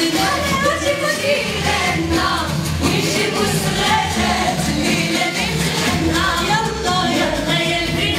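Women singing together into handheld microphones over loud music.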